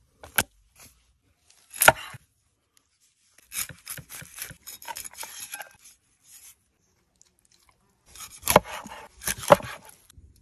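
A whole fish slapped down onto a wooden cutting board with two sharp knocks, then a stretch of knife scraping and rubbing on the fish. Near the end come two hard knife chops through the fish into the board.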